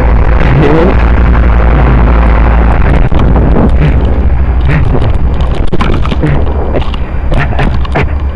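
Blizzard wind buffeting the microphone: a heavy, very loud rumble that turns gustier and choppier after about three seconds.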